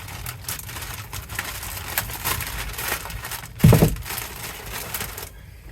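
Rain pattering steadily with dense, irregular ticking, and one loud low thump a little over halfway through; the sound drops away sharply just before the end.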